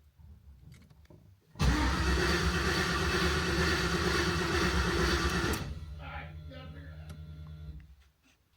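An LS V8 swapped into a Ford Bronco turns over on its starter without firing. It is loud for about four seconds, then fainter and even, and stops near the end. It will not catch because the PCM loses its ignition voltage as soon as the engine turns over.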